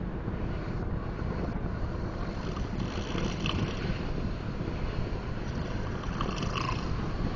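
Snoring from someone deeply asleep: a low rumbling rattle, with a rougher, raspier breath about every three seconds.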